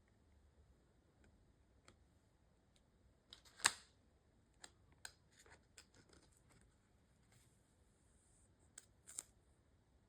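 Pokémon trading cards and their pack being handled: soft, scattered clicks and snaps with a brief rustle, the sharpest snap about a third of the way in.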